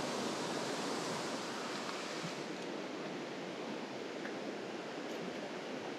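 Mountain stream water rushing over rocks and small cascades: a steady hiss of running water.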